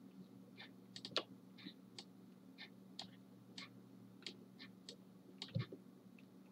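Faint computer mouse clicks, a dozen or so at an irregular pace of about two a second, as brush strokes are clicked onto the image, with a soft thump about five and a half seconds in. A low steady hum runs underneath.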